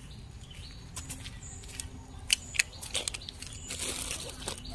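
Footsteps crunching and scuffing on a dirt and gravel trail: irregular crisp steps, with two sharper clicks a little past halfway and a rustling scuff near the end.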